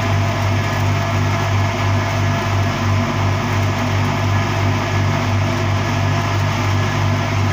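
Electric arc welding on a large pipe joint: a steady hiss from the arc over a low, steady hum.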